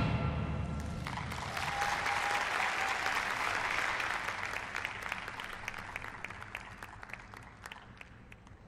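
Applause after a figure skating program, starting about a second in as the last note of the program music rings out. It thins to scattered individual claps and fades away near the end.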